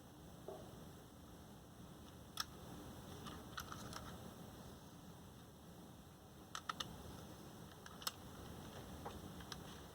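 Small, sharp clicks of a screwdriver and tiny screws being fastened into a Dell Latitude E5570 laptop's hard drive mount, scattered a second or more apart with a quick run of three about two-thirds of the way through, over faint steady hiss.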